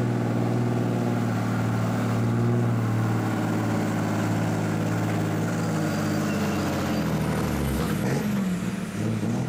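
Diesel pickup truck engine running hard and steady at high revs while the truck drags a weight-transfer sled through dirt. About eight seconds in, the engine note drops away as the pull ends and the throttle comes off.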